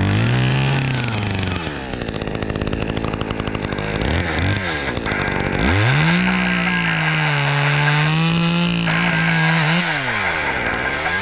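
Two-stroke chainsaw revving: a short burst of throttle, a spell near idle, then about four seconds held at high speed before the engine drops and revs up again near the end.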